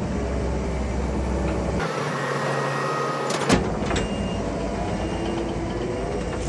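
Skid steer engine running steadily, with a sharp knock about three and a half seconds in.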